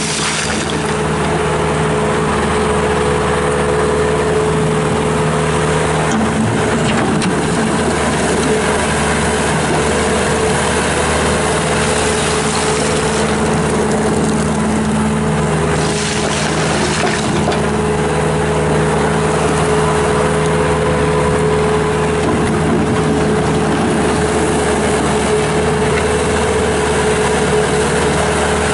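Bobcat S650 skid steer's Kubota diesel engine running steadily at a constant speed, with a low, even drone.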